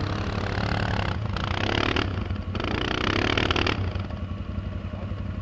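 Quad bike (ATV) engine revving hard in three bursts of about a second each as it climbs a snowy bank, over the steady low idle of another ATV close by. The revving stops a little before four seconds in.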